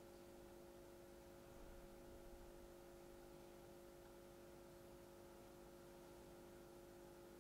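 Near silence: room tone with a faint steady hum of a few unchanging tones.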